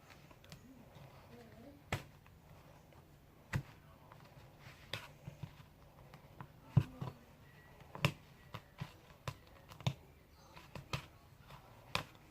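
Irregular sharp clicks and knocks of a utensil against a bowl as sticky gummy-worm slime is scraped off its sides.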